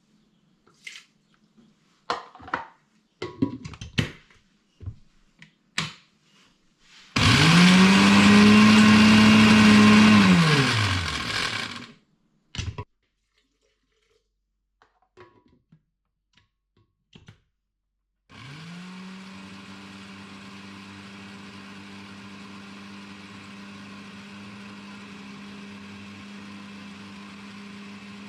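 Electric blender or mixer grinder run once for about five seconds, spinning up, holding and winding down, grinding a sambol for dosa. A few clicks and knocks of handling come before it, and some seconds later a quieter steady motor hum starts.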